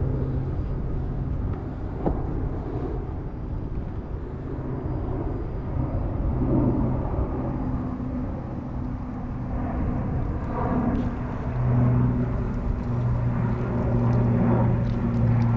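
A distant engine droning steadily under outdoor background noise. Its hum fades and returns, and grows stronger in the last few seconds.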